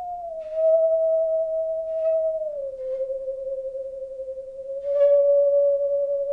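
Singing saw bowed in a slow melody: a pure, sine-like tone that slides from note to note and holds each one. It steps down twice, then up a step about five seconds in, with a light scratch of the bow as the new notes start.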